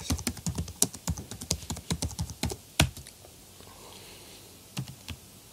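Computer keyboard typing: a quick run of keystrokes for about three seconds, then a pause and two more keystrokes near the end.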